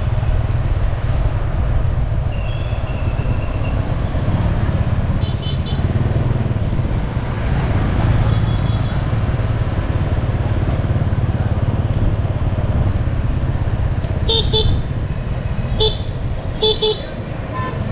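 City street traffic heard from a moving motorbike: a steady low rumble of engine and wind, with a short vehicle-horn toot about five seconds in and a quick run of several short toots near the end.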